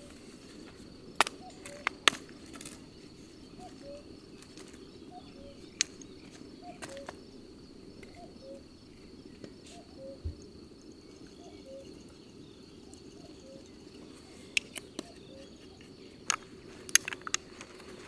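Outdoor ambience of insects: a steady high buzz with faint chirps repeating about every second. It is broken by a few sharp clicks and taps, grouped near the start and near the end.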